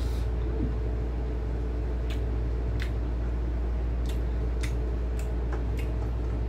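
Eating sounds: about nine short sharp clicks and smacks, scattered irregularly, from chewing and from fingers working rice on a plate, over a steady low hum.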